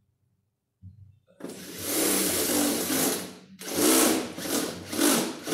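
Cordless drill with a step drill bit cutting through the vehicle's sheet-metal front fender to make a snorkel mounting hole. It starts about a second and a half in, runs for about two seconds, then goes in three short bursts as the hole is finished.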